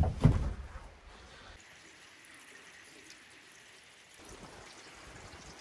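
Steady rain falling, a faint even hiss, after a couple of heavy knocks right at the start.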